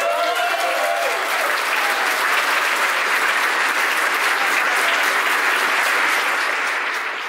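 Crowd applauding steadily in a church hall, starting to fade right at the end.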